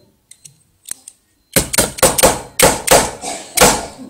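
A hand tool striking a small metal micro motor repeatedly to work its tiny bearing out: about eight sharp knocks, starting about one and a half seconds in.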